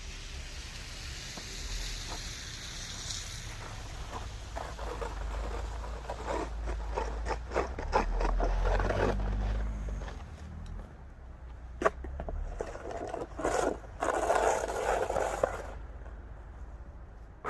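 Scraping and crunching in snow, thickest around the middle, with a single sharp knock after about twelve seconds and another rough burst soon after.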